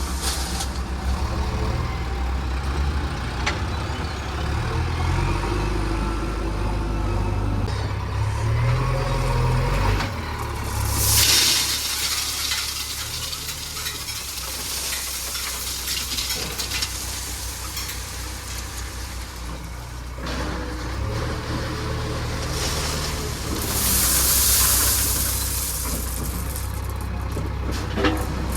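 Diesel engine of a JCB 3DX backhoe loader working under changing load, its note rising and falling as it digs and lifts. It is broken twice by loud hissing rushes: a brief one about a third of the way in and a longer one of a couple of seconds later on.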